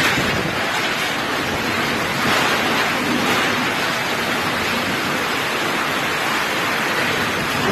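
Loud, steady rush of a heavy rainstorm with strong wind, swelling slightly now and then.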